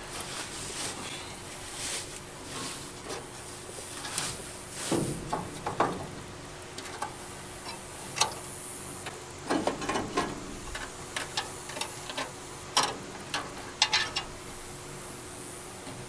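Steel baling wire being handled and threaded through a square baler's wire guides: scattered metal clicks, scrapes and short squeaks as the wire is drawn and moved against the metal.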